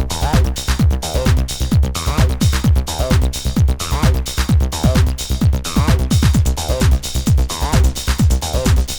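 Electronic dance music: a steady kick drum about twice a second under a repeating synth riff.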